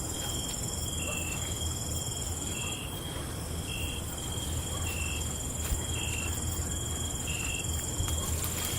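Crickets chirping at night: a continuous high trill, with short chirps repeating about once a second, over a low steady rumble.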